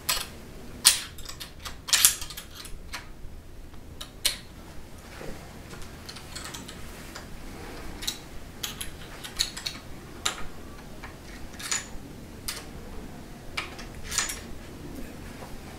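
Irregular small metallic clicks and taps of a bolt and small wrench being worked while fastening the telescope's tube-ring clamp onto the equatorial mount, with the sharpest clicks in the first two seconds.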